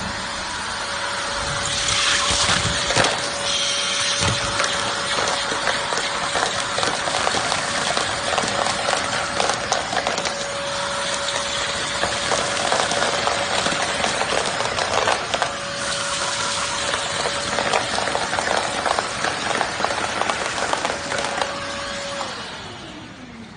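BJ1623 wet and dry vacuum cleaner running: a steady motor whine over loud suction noise, with irregular crackles and rattles. Near the end it is switched off and the motor winds down in a falling whine.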